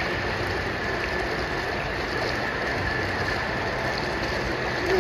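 Steady rushing, splashing water in an indoor swimming pool, with no single event standing out.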